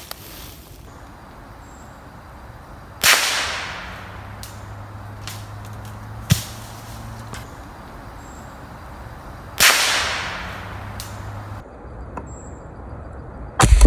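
Savage 64 .22 LR semi-automatic rifle shots: a sharp crack about three seconds in and another near ten seconds in, each echoing briefly through the woods, with a third crack right at the end.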